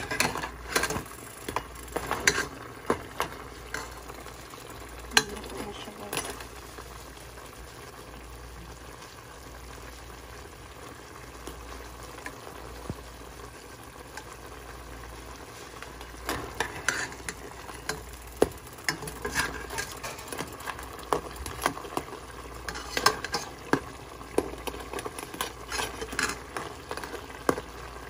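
Blue crabs sizzling in a stainless steel pot with a little soda broth, a steady frying sizzle underneath. A metal spoon scrapes and clinks against the pot and shells through the first six seconds and again through the second half.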